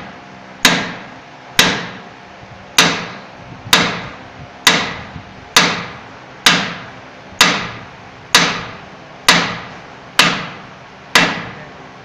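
Heavy hand hammer striking a steel driver tool to drive a cylinder liner into a Nissan UD engine block: twelve sharp metal-on-metal blows, about one a second, each ringing briefly after the hit.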